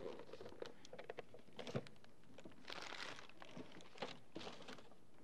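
Faint rustling of wrapping paper and light knocks as small wrapped gift boxes are put into a large gift-wrapped box, with a longer rustle about three seconds in.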